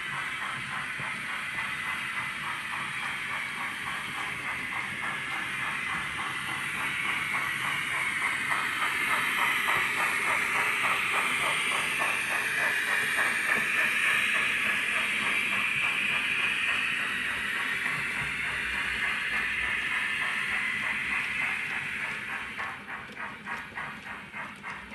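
Sound decoder of a OO-gauge Bachmann GWR Class 45xx Prairie tank model playing fast steam-exhaust chuffs with hiss through its small speaker, mixed with the clatter of the model's mechanism and wheels. It grows louder as the locomotive passes, and near the end the beats turn slower and more distinct.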